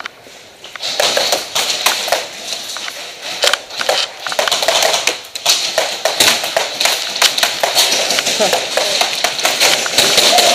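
Airsoft guns firing in rapid, irregular volleys of sharp cracks and clicks, starting about a second in.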